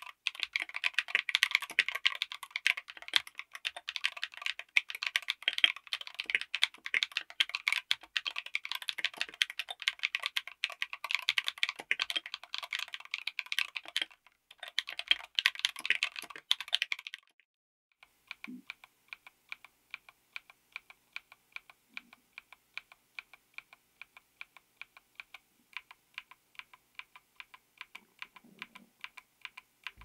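Mechanical keyboard with Akko V3 Cream Blue Pro tactile switches on an FR4 plate in an aluminium case, fitted with SA-profile ABS keycaps, being typed on quickly. About 17 seconds in the typing stops briefly. Then single keystrokes follow at an even pace, about three a second and quieter.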